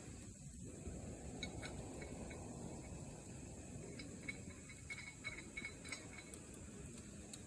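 Wood campfire burning with a low steady rush and scattered sharp crackles and pops, more of them from about four seconds in.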